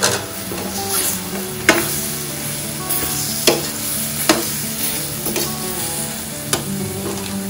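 Onion, tomato and spice masala sizzling in butter and oil in a pan as it is stirred, with a utensil knocking sharply against the pan about five times.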